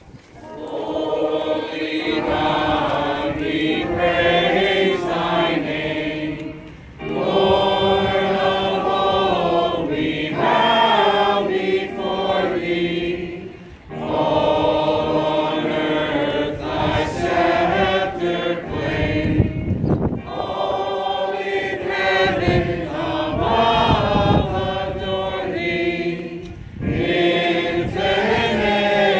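A hymn sung by a cantor and small group of voices with electronic keyboard accompaniment, in sung phrases separated by short breaks between lines.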